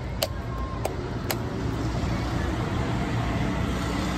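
Steady rumble of road traffic, with three sharp knocks in the first second and a half from a large knife striking a tender coconut's husk to open it.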